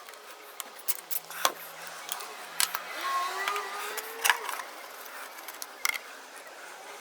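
Scattered sharp metallic clicks and clinks of a wrench working a lawn mower's oil drain plug loose, with brief squeaks in the middle.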